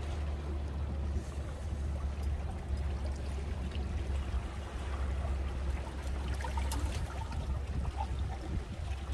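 Seawater lapping and trickling among breakwater boulders, with a steady low rumble underneath.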